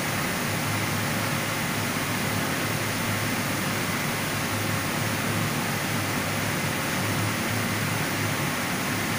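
High-frequency vacuum wood dryer running steadily: an even hiss over a low hum, with a faint high whine.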